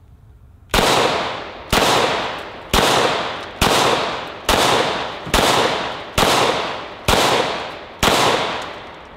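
Nine 9mm shots from a Glock 17 pistol in a Micro Conversion Kit carbine chassis, fired at a steady pace of about one a second. Each crack rings out and dies away before the next.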